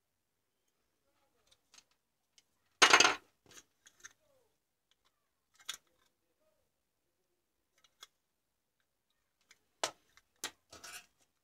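Handling noise from a compact fluorescent bulb being taken apart: scattered light clicks and rubs of its plastic housing and wire leads, with one louder scraping rustle about three seconds in and a few sharper clicks near the end.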